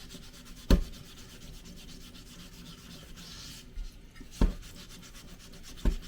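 Grey Scotch-Brite pad scrubbing loosened rust residue off a steel suspension strut-top reinforcement panel, with three sharp knocks of the metal part.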